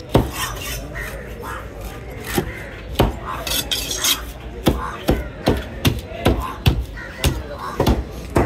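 A knife chopping through fish on a cutting block: a few separate strikes, then a steady run of about two to three chops a second from about halfway.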